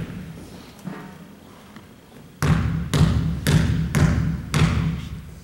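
Basketball being dribbled on a gym floor: one faint bounce about a second in, then five loud bounces at about two a second, each echoing in the hall.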